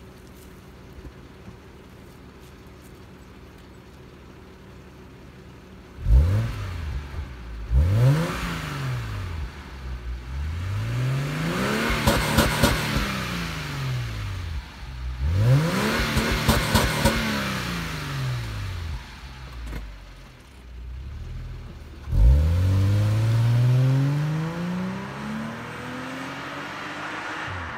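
2007 Subaru Outback 3.0R's flat-six through a Ferrita aftermarket exhaust: idling steadily, then two short throttle blips about six and eight seconds in, followed by two longer revs that rise and fall. Near the end the car pulls away, the engine rising in pitch as it accelerates.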